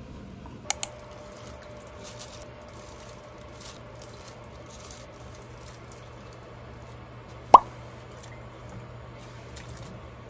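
A single sharp plop of something dropping into a pot of water, about seven and a half seconds in. Two light clicks come near the start.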